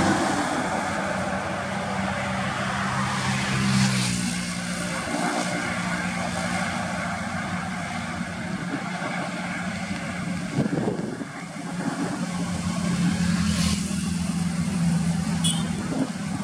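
Highway traffic: a state-transport bus's engine humming steadily as it drives past close by, with the rush of tyres and other passing vehicles.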